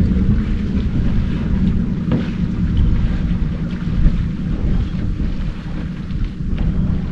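Wind buffeting the microphone out on open water: a loud, steady low rumble, with a couple of light paddle splashes.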